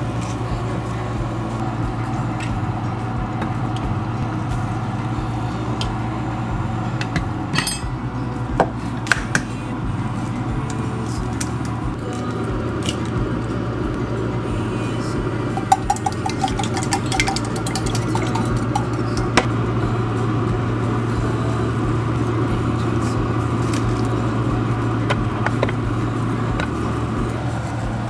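A steady low hum with a noisy rush, with scattered light clinks, like dishes or utensils, every few seconds.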